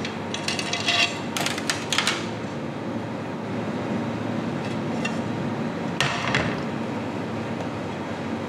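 Ceramic plates clinking and knocking: a quick run of clatters near the start, and one more knock about six seconds in, over a steady background hum.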